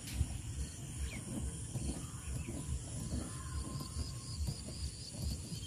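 Quiet outdoor background with a low, uneven rumble. From about three seconds in there is a run of roughly a dozen short, evenly spaced high chirps from a small animal.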